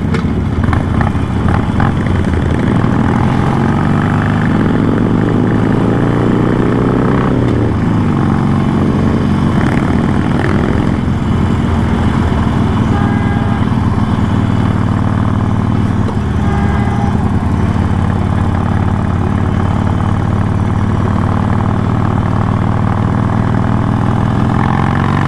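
Harley-Davidson Iron 883's air-cooled V-twin running under way. It climbs in pitch as it accelerates a few seconds in, then holds a steady cruise.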